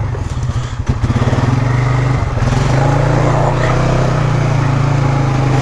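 2021 Polaris Sportsman 570 ATV's single-cylinder engine running at low speed with a steady note, its firing pulses plainly audible for the first two seconds or so.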